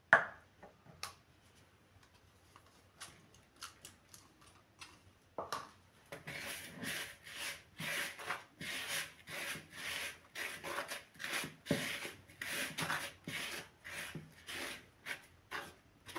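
Hand mixing dry flour and sugar in a plastic bowl: fingers rubbing and scraping through the flour and against the bowl in repeated strokes, about two a second, starting about five seconds in. A sharp knock at the very start is the loudest sound, followed by a few light taps before the mixing.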